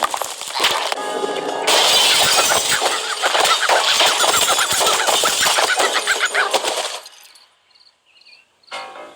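Cartoon soundtrack: music mixed with a dense run of crashing, breaking and clattering sound effects, which cuts off suddenly about seven seconds in and leaves only faint high tones.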